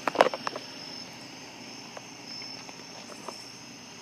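Crickets chirping in a steady high-pitched drone, with a car faintly driving away beneath it. A short burst of louder noise sounds right at the start.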